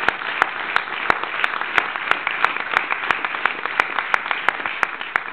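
Audience applauding, with a few louder single claps standing out sharply over the steady clapping.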